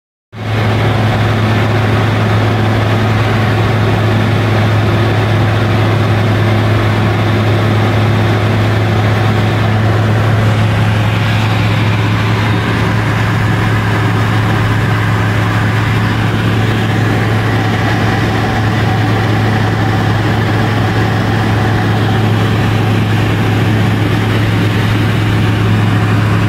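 Tecnam P2002 Sierra's Rotax 912 four-cylinder engine and propeller droning steadily in cruise flight, heard inside the cockpit, with a strong low hum. It cuts in suddenly just after the start.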